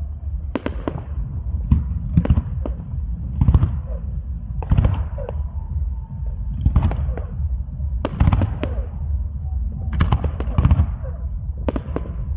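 Aerial fireworks display: shells bursting one after another, with sharp bangs in quick clusters over a steady deep rumble of booms.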